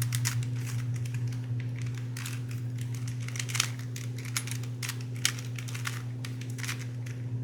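Plastic clicks and clacks of a stiff, stickered Rubik's brand cube being turned by hand, layer turns coming in quick irregular runs. A steady low hum runs underneath.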